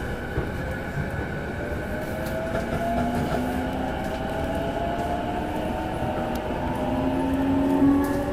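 JR East E233-1000 series electric train heard from inside the car while it accelerates: the traction motors' inverter whine rises slowly and steadily in pitch over the steady running noise of the wheels on the rails.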